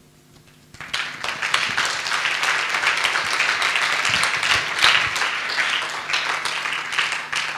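Audience applauding, the clapping starting about a second in after a brief hush and holding steady.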